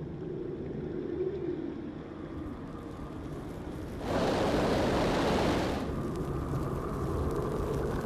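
Sound-design effects under an animation: a low steady rumble, with a hissing whoosh that comes in suddenly about four seconds in and fades out under two seconds later.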